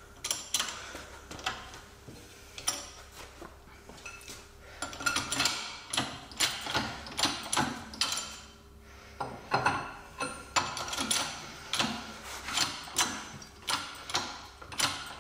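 Hand ratchet wrench clicking in metallic strokes, turning the screw of a press-and-pull sleeve tool to force out a suspension bushing. The clicks are irregular at first and settle into a steady rhythm of about two a second about five seconds in.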